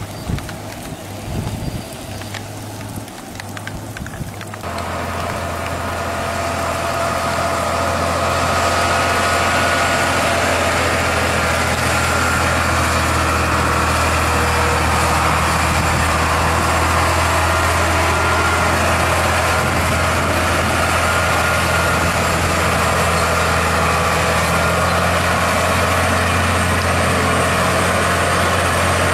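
Heavy diesel engine of a Sinotruk HOWO truck running steadily: a deep, constant hum. It comes in about four and a half seconds in after uneven, wind-like outdoor noise, and grows louder over the next few seconds before settling.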